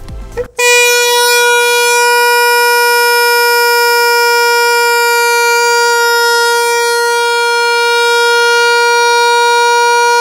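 Plastic hand horn (bhopu) sounded by the air escaping from an inflated balloon fitted over its mouthpiece: one loud, steady horn note at a single pitch, starting about half a second in and held without a break.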